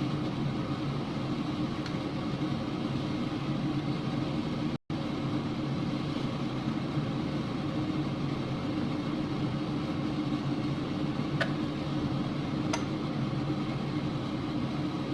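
Steady low mechanical hum, like a running motor or appliance, that drops out for an instant about five seconds in; two faint clicks near the end.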